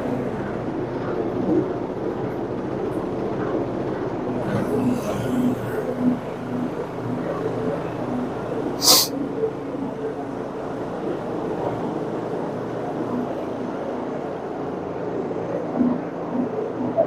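Commercial carpet cleaning machine running steadily. A short, sharp sound cuts in once, about nine seconds in.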